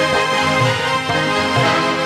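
Instrumental introduction to a Bengali group song played on harmonium, keyboard and tabla: sustained reed chords over a drum beat that strikes a low note about once a second.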